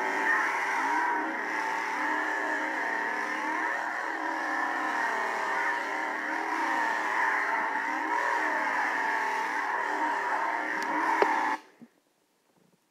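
Chainsaw engine running and revving up and down without a break, then cutting off abruptly near the end.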